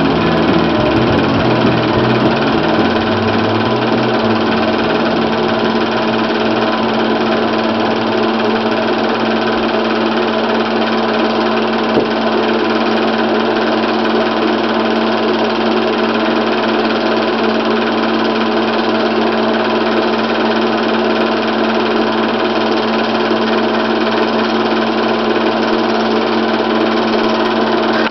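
8mm film projector running: a steady, rapid mechanical clatter over a constant motor hum. Background music fades out in the first few seconds.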